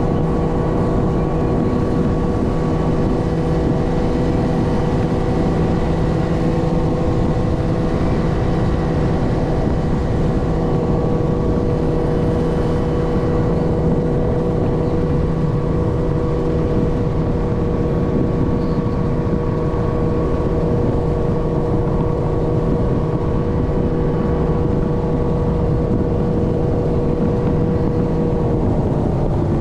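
Motorboat engine running steadily at speed over a rush of wind and water; near the end its pitch drops as it slows.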